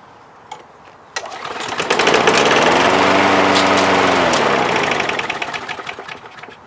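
Push lawn mower engine catching suddenly about a second in on a splash of fuel poured into it, speeding up, running for a few seconds, then slowing and dying out.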